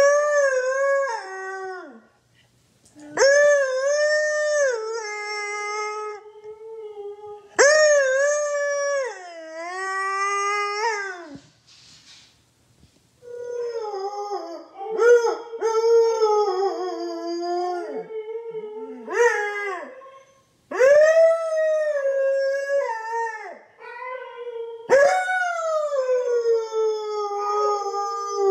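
Siberian husky howling: a series of long howls that rise and fall in pitch, with short pauses for breath between them.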